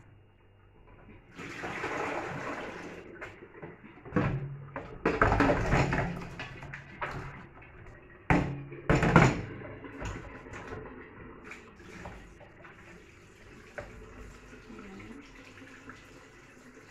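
Water running and splashing in a stainless steel kitchen sink as meat is rinsed and a stockpot is filled and emptied, with two loud metallic clanks of the stainless steel stockpot against the sink about eight and nine seconds in.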